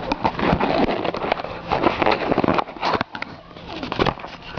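Packaging and small parts being handled: rustling, crinkling and irregular clicks, busiest in the first two and a half seconds, then a few separate clicks.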